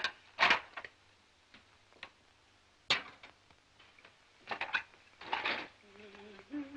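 Crockery clinking and clattering as dishes are washed and handled, in scattered sharp knocks and short clatters a second or two apart.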